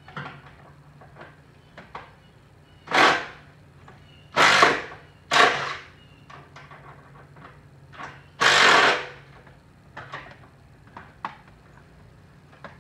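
Tool work on the stripped front end of a Dodge Charger: four short, loud bursts, each under a second, with light clicks and knocks between them.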